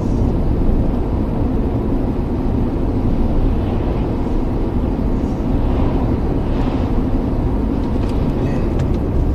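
Steady road noise of a car driving at highway speed, heard from inside the cabin.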